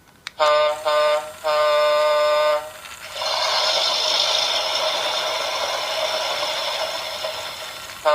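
Electronic horn sound effect from a Fisher-Price Thomas & Friends Talking Diesel toy train's speaker: two short toots and a longer one, followed by a steady, hissing engine-noise effect.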